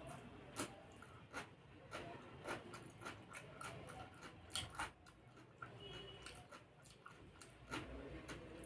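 Close-up eating sounds: chewing with moist mouth clicks and smacks, and a few soft crunches, likely from the salad, at an irregular pace of about one or two a second.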